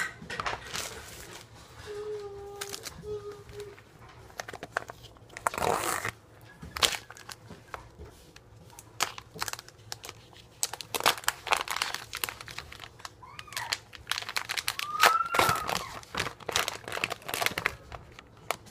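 Plastic food packaging crinkling and rustling in irregular bursts as hands open and handle it during sandwich-making. A few short, high rising-and-falling whines come in near the end.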